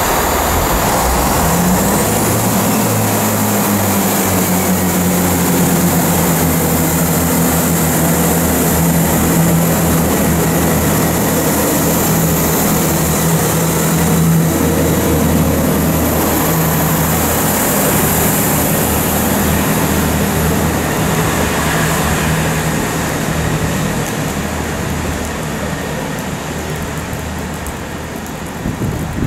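Chiltern Railways diesel multiple unit pulling away from the platform under power, a steady diesel engine drone. The engine note rises about two seconds in, holds, and fades over the last few seconds as the train leaves.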